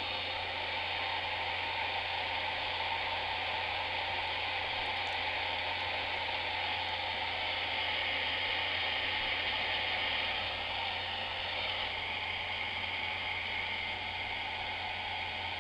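Hair dryer blowing steadily, a continuous rushing hiss with a low hum underneath, as it heats a shipping label to soften the adhesive.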